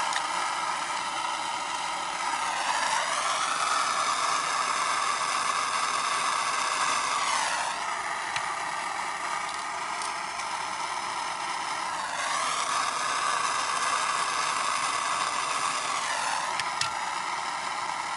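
Handheld gas torch flame hissing steadily as it heats a foil cup of motor oil until the oil smokes and catches. The tone of the hiss sweeps down and back up every four to five seconds.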